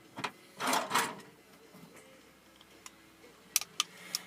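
Small parts of a thermostatic radiator valve being handled on a bench: a short scraping rush about a second in, then a few sharp clicks near the end.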